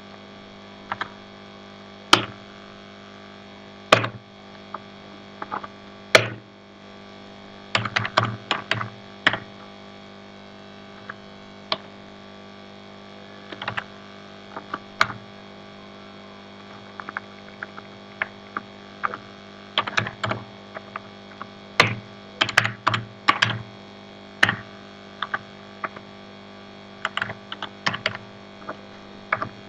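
Typing on a computer keyboard: single key presses and quick bursts of keystrokes with pauses between, over a steady low hum.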